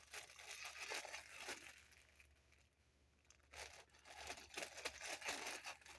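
Plastic packaging crinkling and rustling as squishy toys are handled and unwrapped, in two spells of a second or two with a short lull between.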